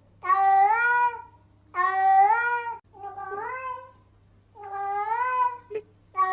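A domestic cat meowing over and over: four drawn-out meows of about a second each, the third shorter and quieter, over a faint low hum, with a sharp click near the end.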